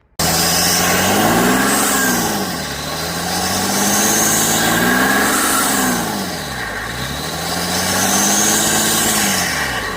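Hyundai Veracruz V6 diesel engine revved three times, each time rising in pitch, holding briefly and falling back toward idle.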